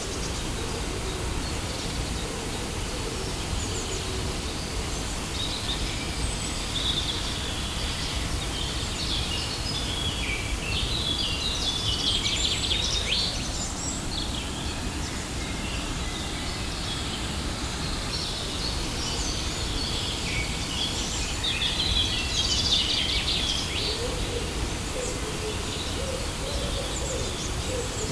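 Steady rush of a waterfall with birds chirping and trilling over it in several bouts.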